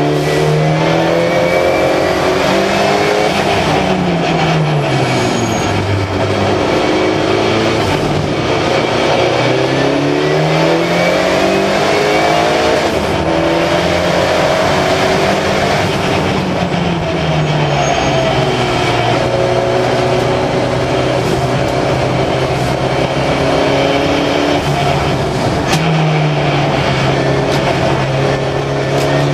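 Turbocharged Volvo 360 race car's four-cylinder engine driven hard on track, heard from inside the cockpit: the engine note repeatedly climbs under acceleration and drops under braking and gear changes, with a steadier stretch in the second half and a fresh climb near the end. The engine is running with its turbo boost pressure turned down.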